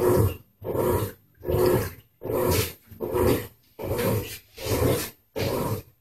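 Electrolux LT08E Turbo Agitação top-loading washing machine agitating a load: the agitator churns the water and clothes in regular strokes, about one every 0.8 seconds, each about half a second long with a short pause between them. The sound is smooth.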